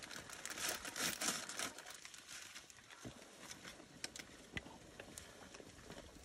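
Water boiling hard in a pot over a wood fire: a dense bubbling crackle for the first two seconds or so, thinning to scattered pops and clicks.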